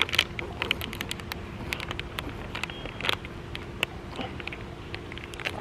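Irregular crinkles, clicks and mouth smacks of someone sucking on and squeezing a plastic freeze-pop sleeve, over a steady low hum.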